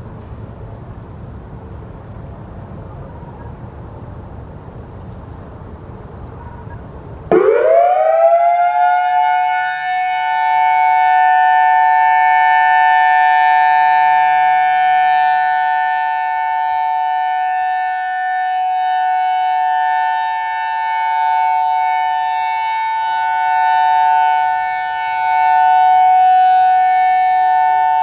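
Whelen WPS-4004 outdoor warning siren starting up about seven seconds in, after a low background rumble. It glides quickly up in pitch and settles into its steady dual-tone alert, two high tones held together, loud, swelling and dipping slightly as it goes.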